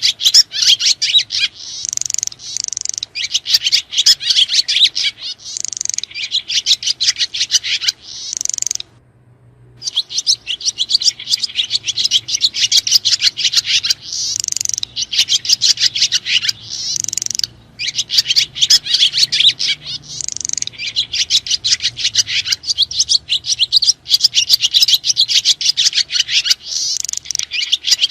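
Swiftlets (sriti) twittering: dense, rapid high chirps in phrases a second or two long. There is a brief break about nine seconds in and a shorter one near the middle.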